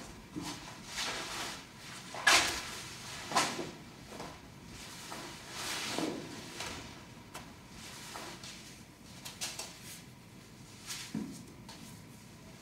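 Clothing rustling as it is taken off and handled, with scattered sharp clicks and small knocks, the two loudest a couple of seconds and about three seconds in.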